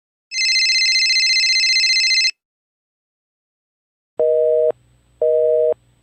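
A steady, high-pitched electronic beep lasting about two seconds. After a short silence comes a telephone busy signal: a low two-note tone pulsing on and off, three half-second beeps with half-second gaps.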